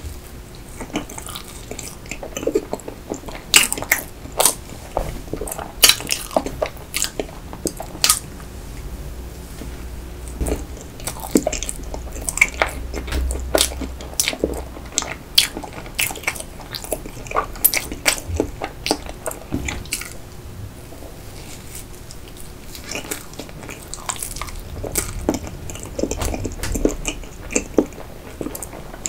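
Close-miked biting and chewing of a soft sponge roll cake, with many sharp, wet mouth clicks. The clicks thin out for a few seconds about two-thirds of the way through.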